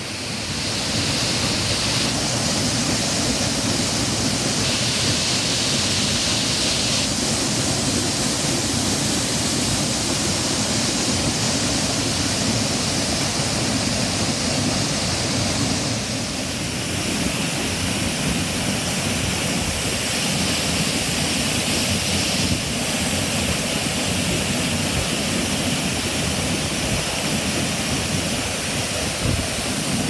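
Waterfall plunging onto rocks and into its pool: a loud, steady rush of water. About halfway through it drops a little in level and changes in character.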